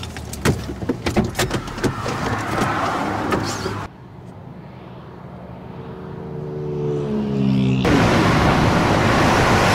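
Sharp clicks and knocks inside a car, then a quieter stretch where an engine note rises in pitch, then loud steady highway traffic noise from about eight seconds in.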